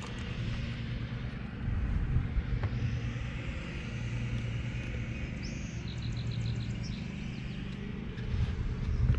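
Steady low hum of a boat motor with wind rumbling on the microphone. A short run of quick high-pitched ticks comes about six seconds in.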